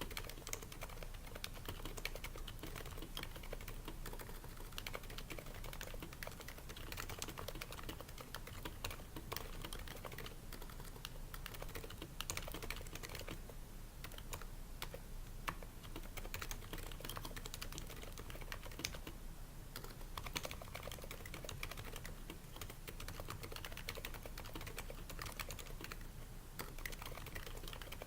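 Continuous typing on a Happy Hacking Keyboard Pro 2 with Topre electrostatic-capacitive switches fitted with o-rings to quiet them, their slider rails lubed and the case lined with shelf liner. A dense run of keystrokes with a couple of brief lulls.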